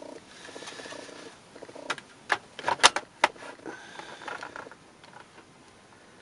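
Plastic hard-drive bay cover on the underside of a laptop being pressed and snapped into place: a handful of sharp plastic clicks between about two and three and a half seconds in, among quieter handling and rubbing noise.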